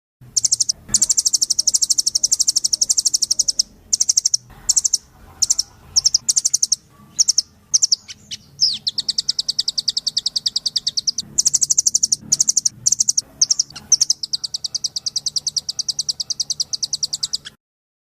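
Songbird masteran recording: rapid, high, evenly repeated trills in long runs broken by short pauses, with a brief downward whistle partway through. The sound stops abruptly near the end.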